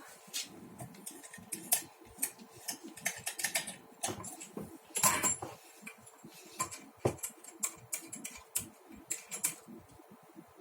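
Irregular clicks, small metallic rattles and a brief scrape, about five seconds in, as coaxial cable connectors are handled to swap a 25-ohm dummy load for a 50-ohm one, over a faint steady hum.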